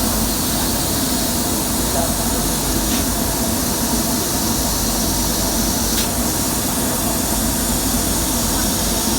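Steady hum and hiss of a running fiber laser cutting machine, with two faint ticks about three and six seconds in.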